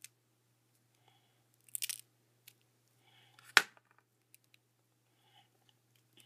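A skateboard bearing being worked into a hardened hot-glue fidget spinner frame by hand: scattered crackles and clicks of glue and metal. There is a brief crackle near two seconds in, and the loudest sound, one sharp click, about three and a half seconds in.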